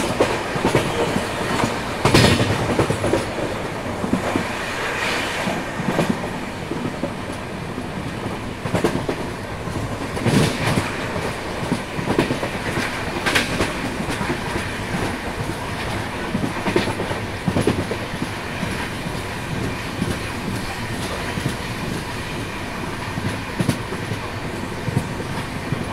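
Express passenger train running along the track, heard from an open coach doorway: a steady rumble and rush of wheels on rail, broken by irregular clicks and knocks as the wheels pass rail joints.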